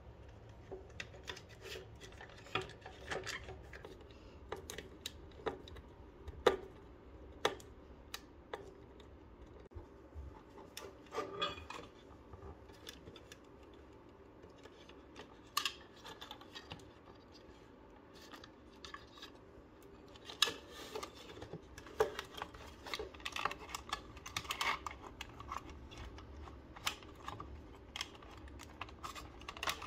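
Irregular small clicks and taps of plastic parts and wires being handled as an opened electronic alarm clock's circuit board is worked over its plastic housing, busiest about two-thirds of the way through.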